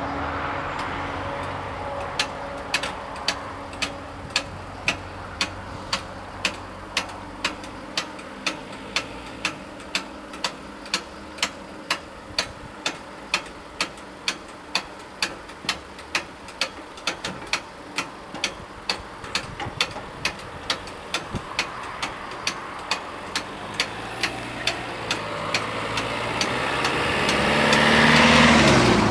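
Level-crossing bells striking about twice a second as the barriers rise, over a car engine idling. Near the end the car drives across the crossing and passes close.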